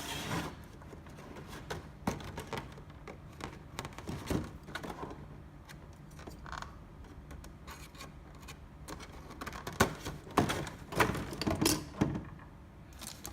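A plastic figure and its plastic packaging being handled: scattered small clicks and taps, with a cluster of louder clicks about ten to twelve seconds in.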